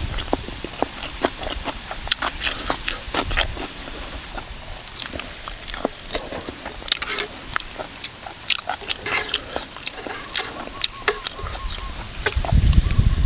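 Close-up chewing and lip-smacking of a person eating spicy cucumber salad, with many short, sharp crunches and smacks. A low rumble hits the microphone near the end.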